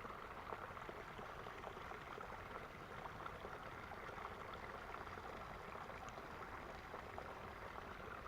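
Faint, steady running of a small creek's water, with a few soft ticks.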